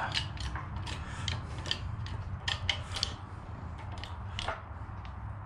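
Hand-pumped bottle-jack hydraulic shop press pressing a tapered roller carrier bearing onto a differential carrier: a string of sharp, irregular metallic clicks from the pump handle and press under load.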